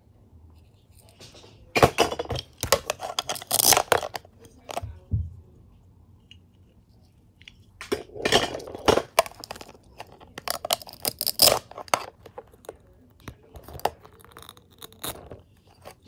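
Velcro-joined plastic toy food and a toy knife being handled and pulled apart, in several short rasping, crackling bursts with pauses between.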